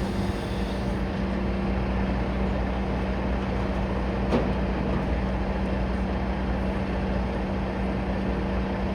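Heavy diesel engine running steadily with a constant low hum. A single short knock sounds about four seconds in.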